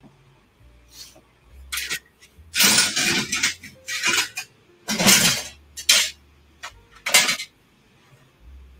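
Bookends being crashed into: a run of clattering knocks and rattles of hard objects striking each other, about seven over several seconds, some short and some drawn out for about half a second.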